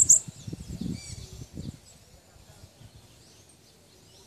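A caged sibito peito branco songbird ends a rapid burst of very high, chirpy song notes right at the start. A few faint high chirps and some low thuds follow in the first second or so, then only quiet background.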